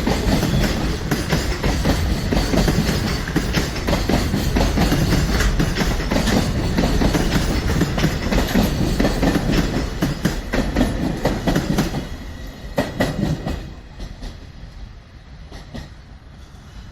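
Train running past the level crossing, its wheels clicking rapidly over the rail joints. About twelve seconds in, the sound falls away quickly as the train clears.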